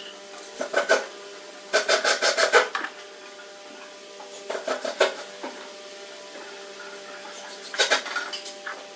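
A paintbrush scraping along the edge of a wooden wheel rim, in four short bursts of brisk rubbing strokes with pauses between, over a faint steady hum.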